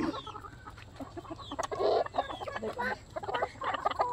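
A flock of hens and roosters clucking, with many short calls overlapping and one louder call about two seconds in.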